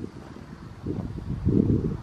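Wind buffeting the microphone in gusts: an uneven low rumble that swells about a second in and is loudest near the end.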